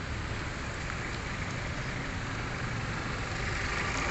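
Street traffic noise: a steady hiss of a motor vehicle on the road that grows gradually louder as it draws nearer.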